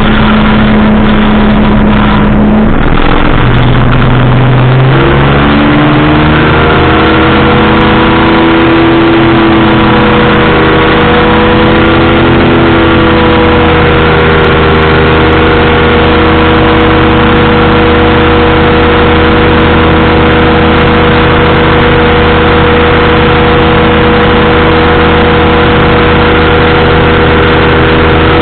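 Powered parachute's engine and propeller running very loud and close, its pitch shifting up a few seconds in as the throttle changes, then holding steady.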